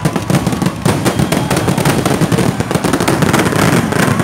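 Aerial fireworks display: shells bursting overhead in a dense, unbroken run of bangs.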